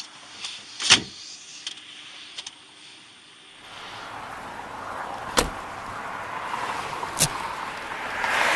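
Sharp clicks and knocks of handling around a car, then, after about three and a half seconds, a rushing vehicle noise that swells, broken by two sharp knocks.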